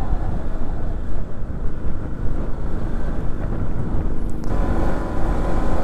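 Strong wind buffeting the microphone, a loud low rumble throughout. A steady engine hum joins about four and a half seconds in.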